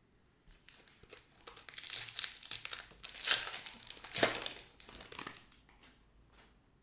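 Foil trading-card pack wrapper being torn open and crinkled: a run of crackling rustles lasting about five seconds, loudest past the middle.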